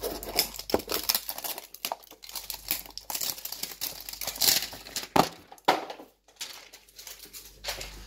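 Cosmetics packaging crinkling and tearing as a product box is unwrapped by hand: irregular crackles, loudest about halfway through.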